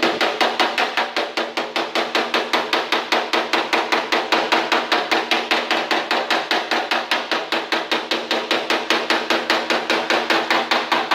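A hammer tapping rapidly on the sheet-steel fender of a 1947 Chevrolet pickup, an even run of about five or six ringing strikes a second that stops near the end. The panel is being hammered smooth after heat-shrinking a stretched high spot.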